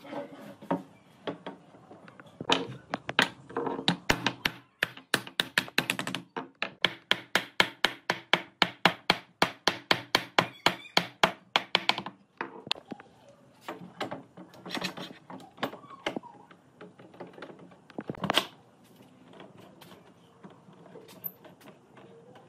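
Hammering on wood: a fast, even run of knocks, about three a second, through the middle, with scattered single knocks before and after.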